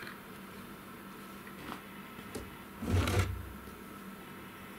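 A single short clunk and rattle, about three seconds in, as the wheel loader's rear engine cover is swung open, with a few faint handling clicks before it.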